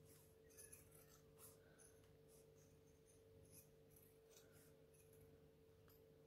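Faint, irregular snips and scrapes of scissors trimming the stitched edge of a vinyl wallet, over a steady low hum.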